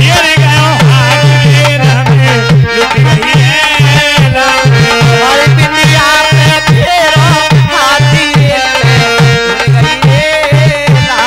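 Live Languriya folk music: a fast, steady hand-drum beat under a wavering melody line, loud throughout.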